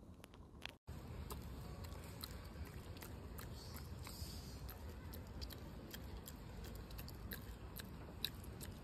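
Low outdoor background noise with scattered light clicks and crackles, typical of small animals moving through twigs and leaves.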